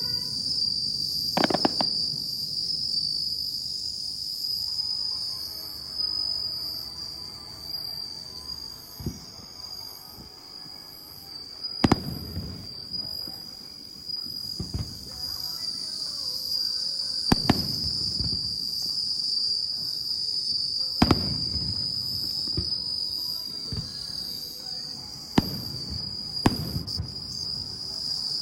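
Aerial fireworks shells bursting: about nine sharp booms at uneven intervals a few seconds apart, some with a rumbling low tail. A steady high insect chirring runs underneath.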